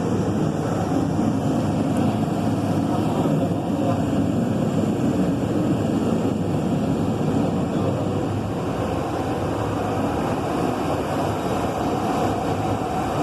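High-temperature LPG gas stove burner firing, its flame giving a steady, even rushing noise that holds at a constant level.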